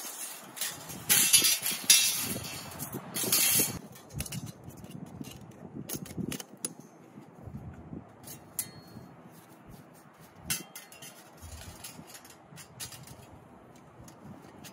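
Flat metal panels of a folding twig stove being handled and slotted together by gloved hands: a stretch of scraping and rubbing in the first few seconds, then scattered light metallic clicks and clinks.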